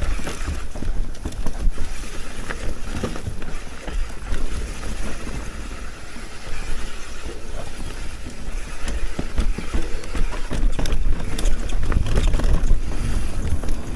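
A Commencal Meta TR mountain bike descending rough, rocky dirt trail: wind noise on the microphone with knobby tyres rolling and a steady stream of clicks and rattles as the bike bounces over rocks and roots. The low rumble gets heavier near the end.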